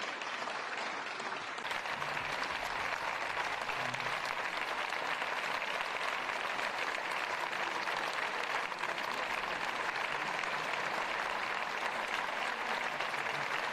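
Senators applauding: steady, sustained clapping from many hands.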